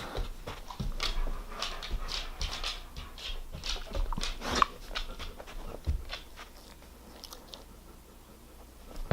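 German Shepherd making mouth and nose noises: a run of irregular short clicks and snuffles that dies down about seven seconds in.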